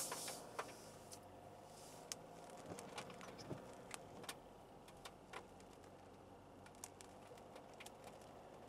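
Quiet, steady hum inside the cabin of a SsangYong All New Rexton on the move, with irregular sharp ticks scattered through it, raindrops striking the car.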